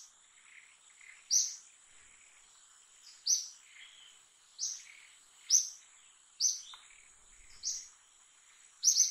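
A bird calling repeatedly with short, sharp falling chirps, roughly one a second, over a steady high-pitched hum.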